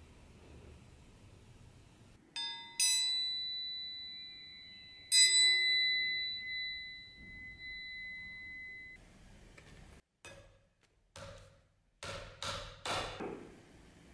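Bare steel knife blade struck three times, ringing with a clear bell-like tone that fades over several seconds, then cut off abruptly. A few short scraping noises follow near the end.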